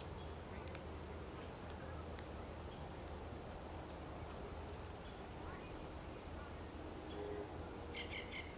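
Faint outdoor ambience with scattered short high chips, and near the end a male great-tailed grackle calling with a quick run of several short notes.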